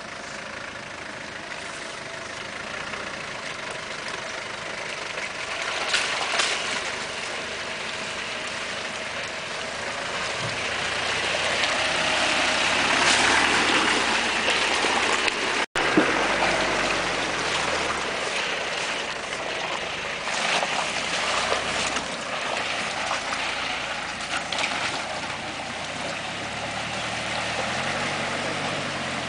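Land Rover Discovery engine running as it drives through deep, water-filled muddy ruts, with water splashing loudly. The splashing is loudest about halfway through, as muddy water washes over the bonnet and windscreen.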